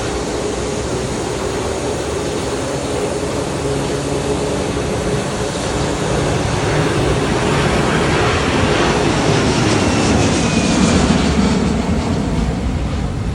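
Boeing 757-200 jet engines at takeoff thrust, a loud, steady rushing noise with a low rumble. It grows louder through the middle and peaks near the end, then eases off.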